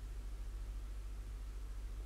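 Steady low hum with faint hiss: quiet room tone, with no distinct strokes or knocks.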